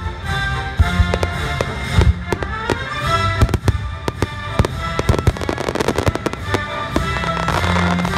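Aerial fireworks shells bursting one after another over steady music, with a dense run of sharp bangs and crackles in the middle.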